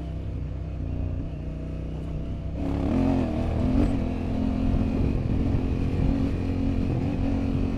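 Honda Africa Twin 1100's parallel-twin engine running at light throttle, then opened up about two and a half seconds in and pulling harder, its pitch rising and falling with the throttle.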